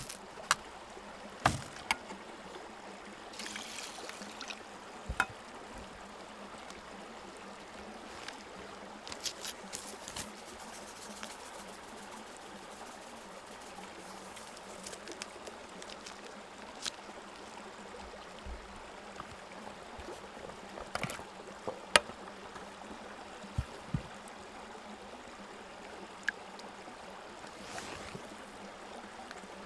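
Quiet handling sounds of camp cooking: scattered light clicks and knocks of a metal mess tin as rice is washed in it with water, over a steady faint hiss. Near the end a match is struck.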